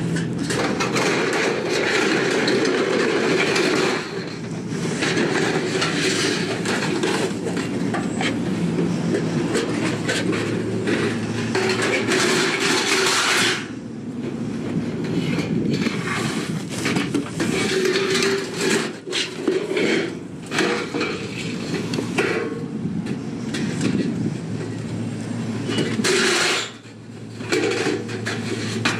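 Continuous clattering and rattling of metal objects, with many knocks, easing off briefly about fourteen seconds in and again near the end.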